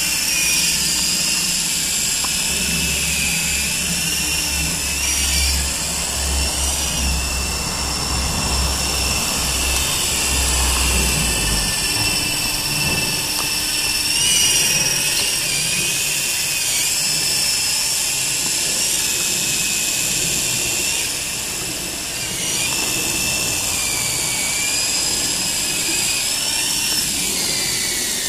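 Volitation 9053 RC helicopter in flight: the high whine of its electric motors and the buzz of its coaxial rotors, rising and falling in pitch as the throttle changes.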